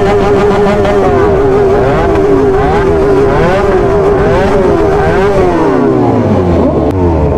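Several superbike engines revving at once, their pitches rising and falling over one another, while one engine is held at steady high revs until about five seconds in and then drops away.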